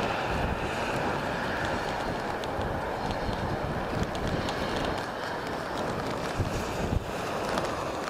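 Jet airliner engine noise, a steady rush with a faint whine that fades out at the start, mixed with wind buffeting the microphone.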